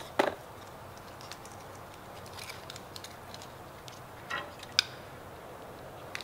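Sharp clicks and light clatter of small hand tools and wire being handled at a workbench, the loudest click just after the start and another a little before the end, with scattered faint ticks between.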